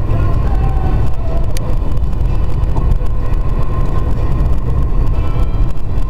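Steady low rumble of road and wind noise inside a moving car, driving on wet pavement in a blizzard.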